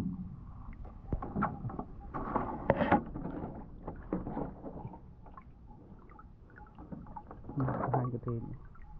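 Hands handling a clear plastic jar with a red screw lid over a woven bamboo tray: scattered knocks, clicks and rustles, with a louder, busier stretch about two to three seconds in.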